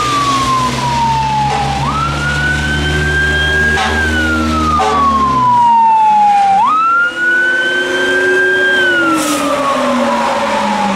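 Fire truck siren in a wail: each cycle rises quickly, holds briefly, then slides slowly down, about every five seconds. Underneath it, a Howler low-frequency siren sweeps the same pattern at a much lower pitch. A heavy diesel engine rumble is heard as the truck approaches and passes, fading out about halfway through.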